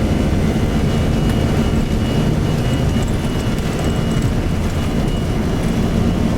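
Steady low rumble of a Boeing 737-300's engines and airflow heard inside the cockpit during the takeoff run and initial climb, with a faint steady high whine over it.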